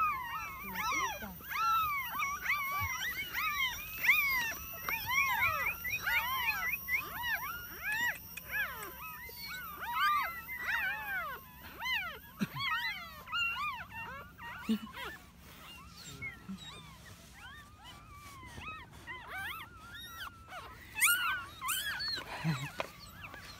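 Newborn puppies crying: many short, high, squeaky whines rising and falling, crowded and overlapping at first and thinning out after about fourteen seconds. A burst of rustling handling noise comes near the end.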